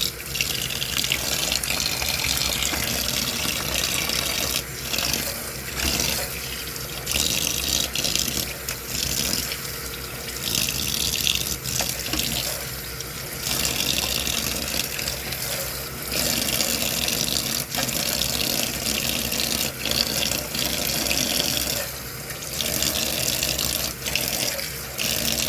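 Kitchen tap running into a sink, the splash of the water changing every few seconds.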